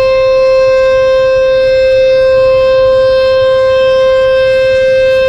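Sentry 14VB outdoor warning siren sounding a loud, steady tone at one held pitch.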